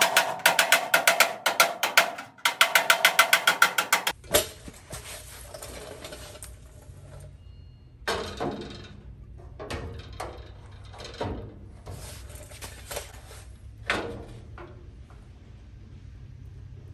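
A hand ratchet clicking rapidly in two runs over the first four seconds. Then, over a low steady hum, a few scattered knocks and scrapes as an aluminium bar-and-plate intercooler is handled and pressed against the truck's steel radiator support.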